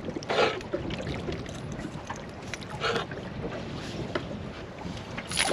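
Wind on the microphone and water against a small aluminium boat's hull, with two short scuffling sounds, about half a second in and near three seconds in, as a small shark is handled in a landing net.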